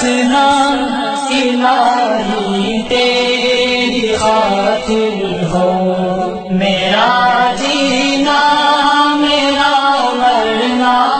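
Urdu devotional nasheed sung in a chanting style, the voice drawing out long, wavering notes.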